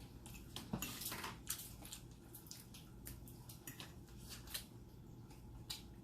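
Close-up eating sounds: an irregular run of short clicks, crackles and wet squishes as seafood is handled, cracked and chewed, the loudest crackle about a second in.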